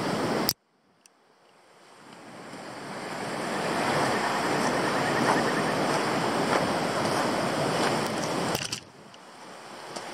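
Steady rushing of river water, with some wind on the microphone. About half a second in the sound cuts out abruptly after a click and swells gradually back over the next few seconds, then dips again briefly near the end.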